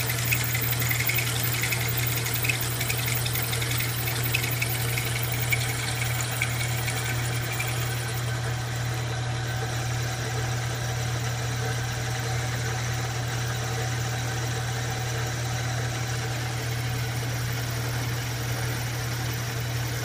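Vertical milling machine running in high speed, its 3/8-inch drill cutting into a broken steel stud. A steady motor and spindle hum with a higher cutting noise over it.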